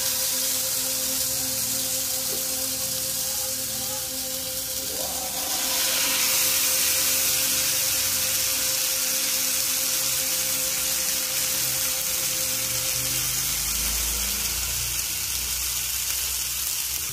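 Masala-marinated fish sizzling in oil on a hot dosa griddle, a steady hiss that grows louder about five seconds in as the fish start to fry.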